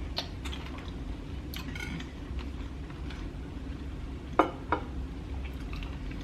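Cutlery clinking and scraping on a plate in scattered light clicks, with two sharper clinks about four and a half seconds in, over a steady low hum.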